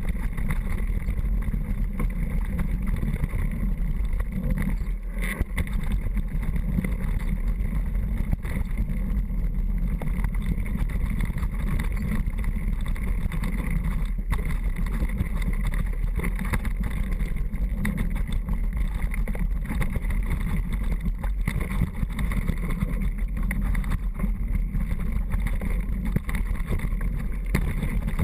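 Steady wind rush on an action camera's microphone during a downhill mountain-bike descent, with faint knocks from the bike scattered through it.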